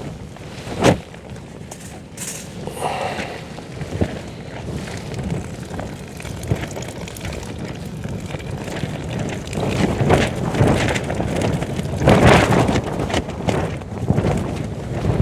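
Gusting wind buffeting a tent, the fabric shaking and flapping, with a sharp thump about a second in. The gusts grow louder in the last few seconds.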